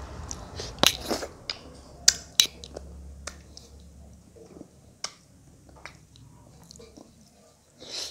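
Eating by hand: sharp wet lip smacks and mouth clicks with chewing, as rice and curry are scooped up and fingers go into the mouth. The clicks are loudest and closest together in the first two and a half seconds, then come fewer and quieter.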